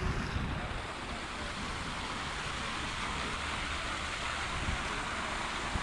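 Steady rushing outdoor background noise, even and without any clear tone or rhythm.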